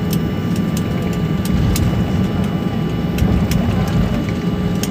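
Cabin noise of a Boeing 737-800 taxiing: the CFM56-7B engines at idle with the aircraft rolling, a steady low rumble with a few steady whine tones over it. Scattered light ticks and rattles come through now and then.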